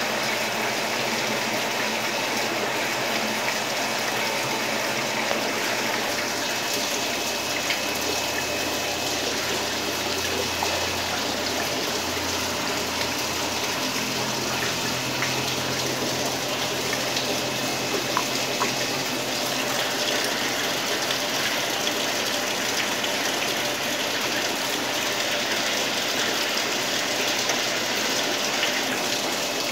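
Steady rush of running water, with no breaks or changes.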